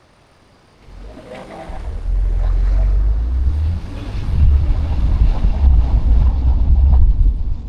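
A car on the move: a low, rumbling rush of road and wind noise. It swells in about a second in and stays loud.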